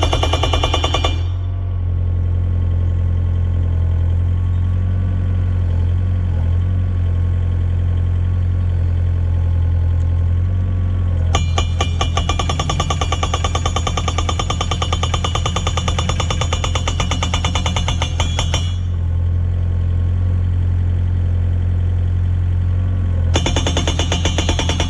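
Yanmar mini excavator's engine running steadily while its modified hydraulic rock breaker hammers a fence post into the ground in rapid blows. The hammering comes in three runs: briefly at the start, for about seven seconds in the middle, and again near the end, with only the engine between.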